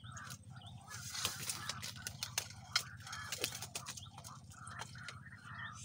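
A hooked tilapia splashing and thrashing at the muddy water's surface as it is pulled in to the bank and lifted out on the line, a run of sharp splashes and rustles through the middle seconds. Short animal calls repeat in the background.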